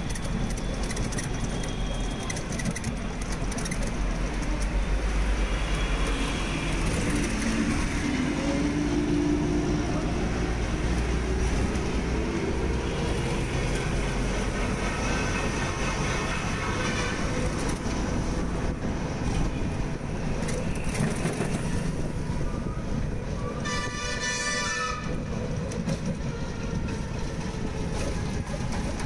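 Road traffic noise of engines and rumble, with horns honking now and then and one loud horn blast lasting about a second some twenty-four seconds in.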